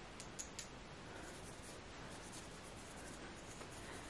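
Quiet room tone with faint scratching or rubbing and a few light clicks in the first half-second.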